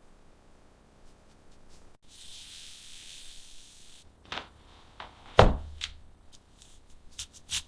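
Scattered knocks and taps. The loudest comes a little past halfway, and a quick run of taps follows near the end.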